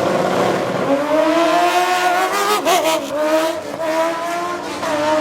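High-performance car engine at full throttle, its pitch climbing steadily, with a brief drop and wobble about halfway through like a gear change, then holding high.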